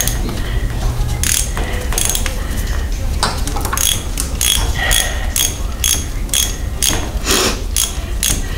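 Hand socket ratchet clicking as a bolt is turned, a few scattered clicks and then a steady rhythm of about three clicks a second.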